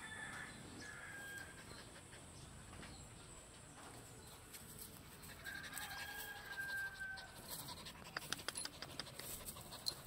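Thin, high-pitched animal calls: two short ones at the start and a longer drawn-out one around the middle. They are followed by a quick run of clicks and rustles close by near the end.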